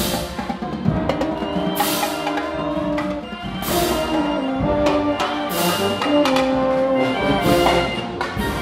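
Band music of held brass chords over drums, with a cymbal crash about every two seconds.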